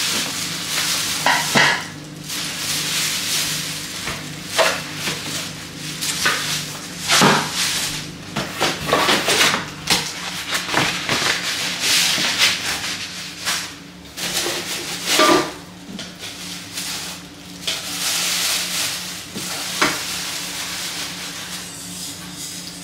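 Packaging being handled while aluminium pots and lids are unwrapped: crinkling plastic wrap and rustling cardboard, broken by light knocks and a couple of brief metallic clinks.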